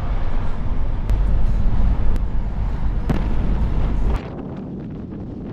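Low, steady rumble of a car driving, heard from inside the cabin. About four seconds in it drops abruptly to a quieter, steady noise.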